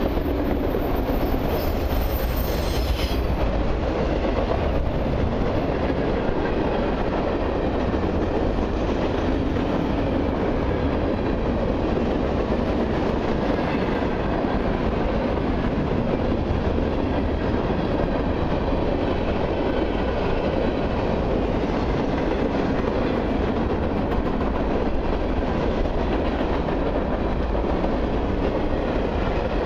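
Freight cars of a long mixed train rolling past close by: a steady, continuous rumble and clatter of steel wheels on the rails, with a brief high squeal in the first few seconds.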